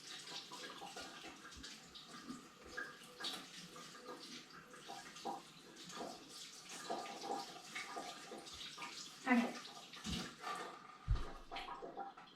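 Hands being washed under a running tap, water splashing into a sink, with a few knocks near the end.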